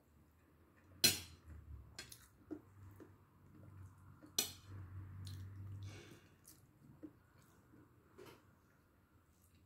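Metal spoon and fork clinking and scraping against a bowl while noodles are eaten. There is a sharp clink about a second in and another about four and a half seconds in, with softer taps and scrapes between them.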